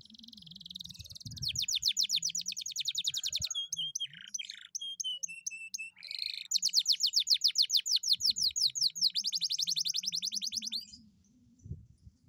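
Domestic canary singing loudly in long, fast rolling trills of rapid repeated high notes. In the middle the trills break into a few slower, separate notes, then the rolling trills return and stop about a second before the end.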